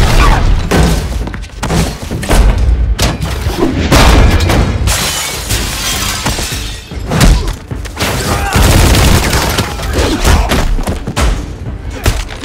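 Dense, loud action-film fight sound effects: heavy thuds and booming hits, crashing and shattering, and bursts of gunfire, one after another throughout, over background music.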